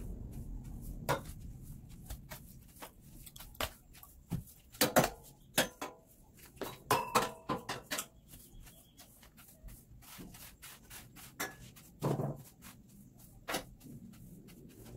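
Irregular knocks, taps and clinks of household cleaning with a wooden broom, with a few louder knocks about five, seven and twelve seconds in.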